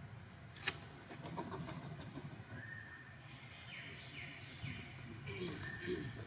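Outdoor forest ambience with faint bird calls: short whistled notes and chirps from about two and a half seconds in. A single sharp click sounds about a second in.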